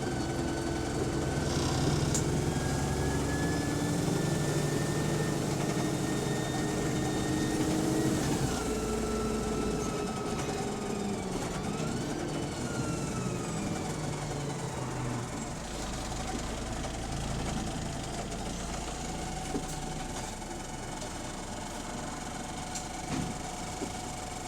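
Bus engine and Voith automatic gearbox running from inside the bus, with a loud gearbox whine. The whine rises slowly in pitch, drops sharply about eight seconds in as the gear changes, then sweeps up and down a few more times before the engine settles to a quieter steady hum.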